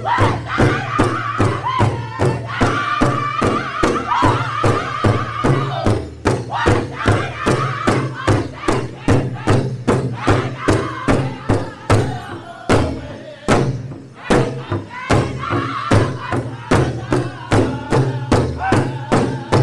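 Powwow drum group performing an intertribal song: several men strike one large powwow drum together in a steady, even beat while singing in high, strained voices. The singing is strongest at the start, fades for several seconds in the middle while the drumbeat carries on, and swells again near the end.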